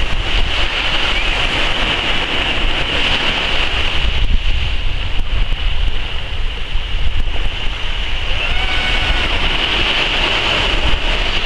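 Small waves breaking and washing up a sandy beach, with wind buffeting the microphone as a low rumble.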